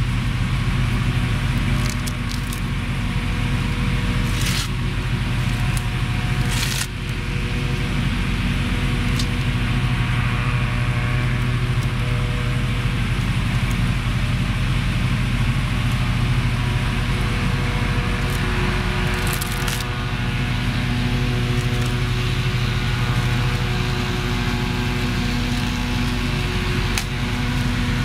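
A steady mechanical hum with several constant pitches, such as a running motor or engine, with a few short clicks.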